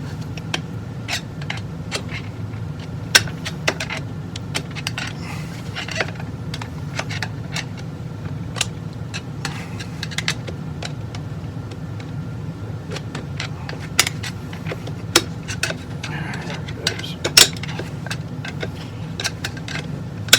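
Metal tools prying and tapping a steel snap ring into its groove in a transmission clutch drum: scattered sharp metallic clicks and clinks at uneven intervals, over a steady low hum.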